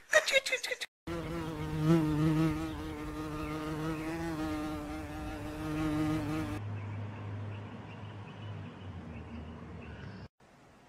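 A flying insect buzzing: a steady, slightly wavering drone with a rich ring of overtones, from about a second in until past halfway, after which only a fainter low hum remains.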